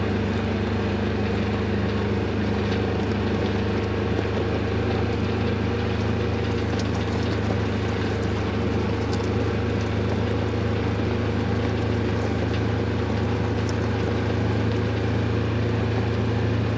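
An engine running steadily at a constant speed, a continuous drone with no change in pitch.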